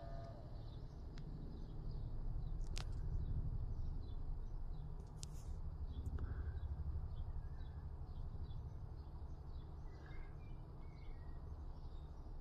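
Quiet low background rumble with faint bird chirps and a few light clicks.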